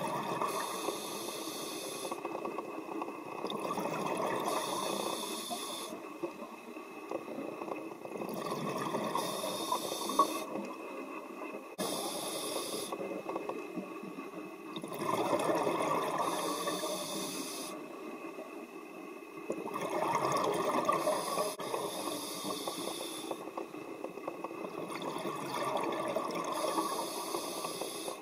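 Scuba diver breathing through a regulator underwater: a hissing inhale followed by a burbling rush of exhaled bubbles, repeating in slow breaths every few seconds.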